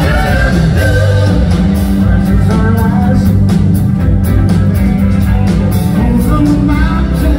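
Live rock band playing, with lead vocals sung over electric guitar, keyboards, bass and drums, cymbals keeping a steady beat.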